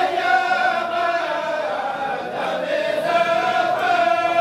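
A kourel, a circle of men, chanting a xassida (Senegalese Sufi devotional poem) together without accompaniment, in long drawn-out notes that bend slowly in pitch.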